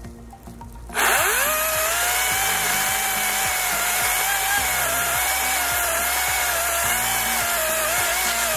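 Ryobi 40V brushless cordless chainsaw starting suddenly about a second in, its motor whine rising quickly and then holding fairly steady with a slight wavering as the chain cuts into a thick stump.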